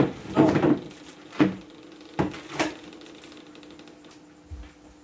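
Plastic stools and a plastic table being handled and moved: a short rubbing scuffle, then three sharp plastic knocks in quick succession.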